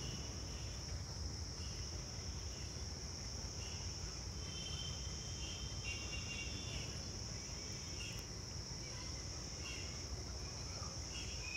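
Steady high-pitched chirring of crickets in the background over a low hum, with a few faint short chirps in the middle.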